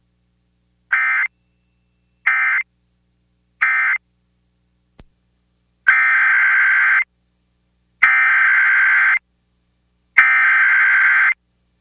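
Emergency Alert System SAME data bursts. First come three short bursts, the end-of-message code that closes one tornado warning. After a faint click come three longer bursts, about a second each, the coded header that opens the next warning.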